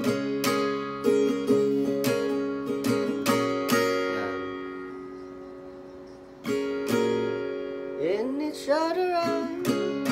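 Acoustic guitar, capoed at the sixth fret, strummed through the C9 and G verse chords. About four seconds in, one chord is left ringing and fades out. Strumming starts again after about six and a half seconds, and near the end a voice briefly sings along.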